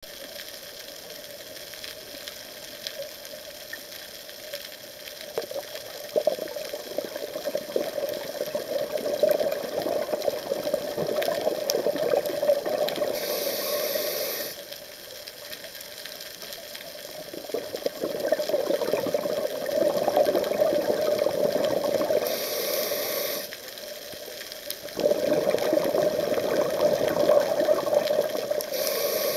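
Scuba diver's regulator breathing underwater: three long bursts of exhaled bubbles with quieter pauses between, each burst ending in a brief high hiss.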